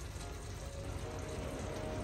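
Rosé pasta sauce simmering and sizzling in a ceramic-coated frying pan as the noodles are tossed through it, under soft background music.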